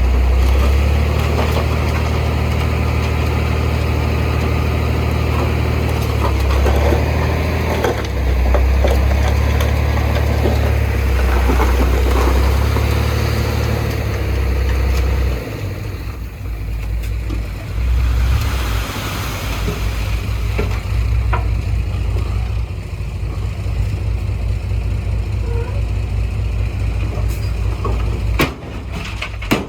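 Heavy diesel earthmoving machinery running with a loud, deep engine rumble that changes about halfway through to a lower, pulsing beat; a few sharp clanks near the end.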